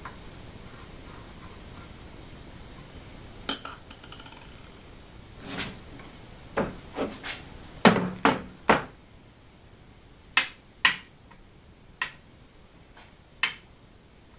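Metal CNC router parts (aluminium plates, steel linear rails, a hex key) handled and set down on a worktable: about a dozen separate knocks and clinks, the first, about three and a half seconds in, with a brief metallic ring, several close together in the middle.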